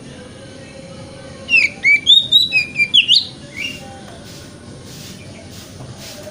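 Oriental magpie-robin singing: a short burst of clear whistled notes sliding up and down, starting about a second and a half in and lasting under two seconds, with one faint note after it, over a steady low background hiss.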